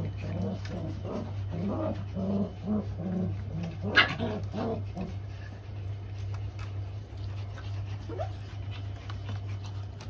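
Australian Shepherd puppies playing, with short growls and whimpers in quick succession for the first half and one sharp yip about four seconds in. The calls then give way to quieter scuffling and a single short rising squeak. A steady low hum runs underneath.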